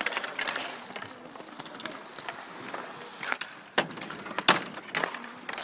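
Inline hockey play: scattered sharp clacks and knocks of sticks and puck on the asphalt and boards, the loudest about four and a half seconds in.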